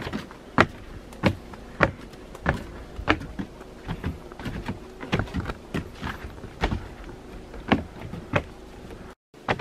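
Footsteps at an even walking pace on a wooden boardwalk trail, about one and a half steps a second.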